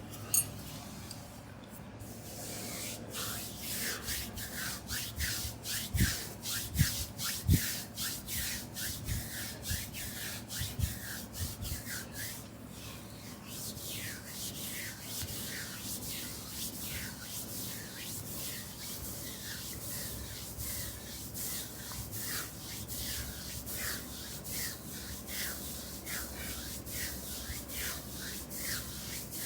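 Hands rubbing over oiled skin in a back and shoulder massage: quick, even strokes, about two a second. A few dull thumps come between about six and eight seconds in, and the strokes grow softer after about twelve seconds.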